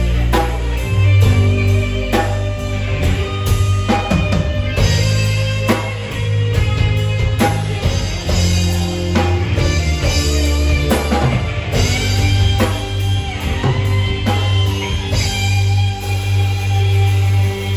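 Live rock band playing an instrumental passage: electric guitar and drum kit over a heavy, steady bass line.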